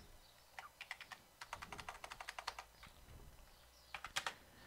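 Faint computer keyboard typing: a quick run of keystrokes, then a few stronger ones near the end.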